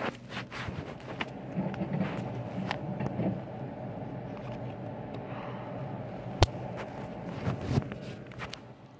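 Handling noise of a phone being moved about: rubbing over a steady low hum, with a few sharp knocks, the loudest about six and a half seconds in.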